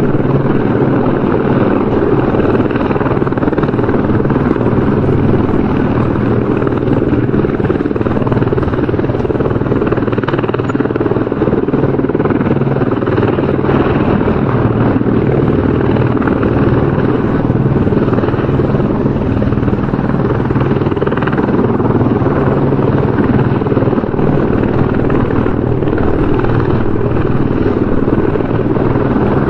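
Helicopter running steadily, its rotor and engine making a continuous, even noise that is heaviest in the low end, with no change in level.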